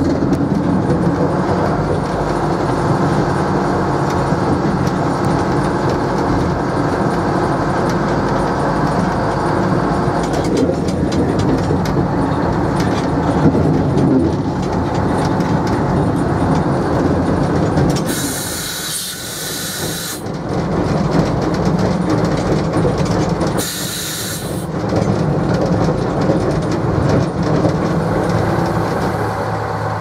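NZR Tr-class diesel shunting locomotive Tr 81 running under power, heard from inside the cab, with wheels clicking over the rail joints. Just past halfway the engine drops back and two bursts of hiss follow, the first about two seconds long and the second about a second long.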